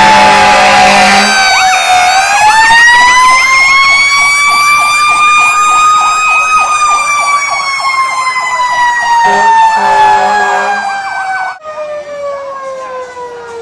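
Fire engine siren wailing, rising slowly in pitch for a few seconds and then falling, with a faster warbling siren pattern over it. A horn blares for about the first second. The sound drops off sharply in loudness near the end as the truck moves off, and the wail keeps sliding down.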